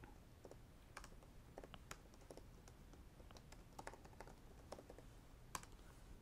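Faint computer keyboard typing: irregular, scattered key presses, with one louder click near the end.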